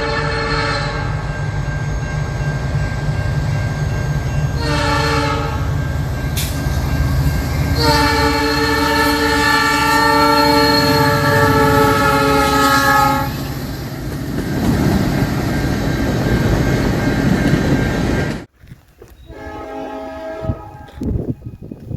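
Nathan Airchime New Cast P3 three-chime horn on a diesel freight locomotive sounding a chord: a blast ending about a second in, a short blast around five seconds, and a long blast from about eight to thirteen seconds, with the loud rumble and rail noise of the train going by. The sound cuts off suddenly near eighteen seconds, and a fainter horn blast from another train follows.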